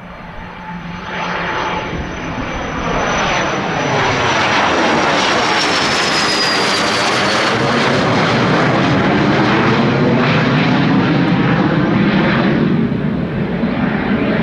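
Cessna 510 Citation Mustang's twin Pratt & Whitney PW615F turbofans at climb power, passing overhead just after takeoff. The jet noise builds over the first few seconds and stays loud. A high whine drops in pitch as the jet goes over, and the noise begins to fade near the end.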